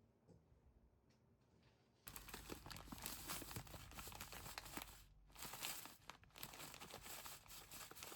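Crinkling and rustling, a dense run of small crackles that starts suddenly about two seconds in and carries on with two brief pauses.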